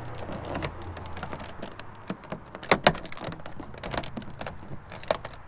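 Hard plastic door handle surround trim being handled and pressed onto a car door card: scattered light clicks and taps, with two sharper clicks close together a little under three seconds in.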